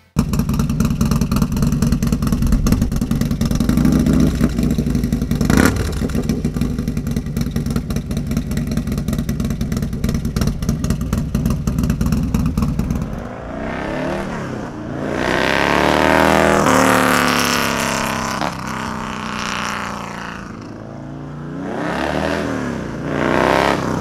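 Harley-Davidson Milwaukee-Eight V-twin, built out to 135 cubic inches, running hard with a fast firing beat for about 13 seconds. After that the exhaust note sweeps up and down several times as the bike revs and rides by.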